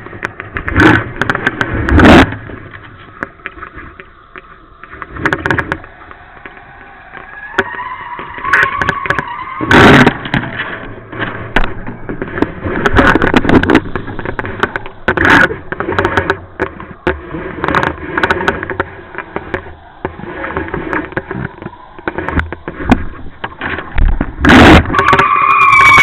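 Wind rushing and buffeting over the microphone in irregular loud gusts, with a wavering whistle that comes in at the start and again near the end.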